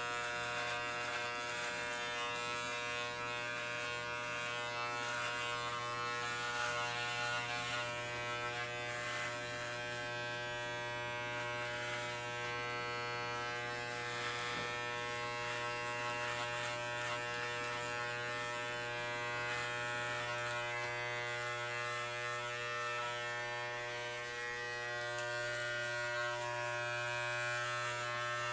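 Corded electric dog clippers buzzing steadily as they trim chest and armpit hair: a continuous hum with many overtones.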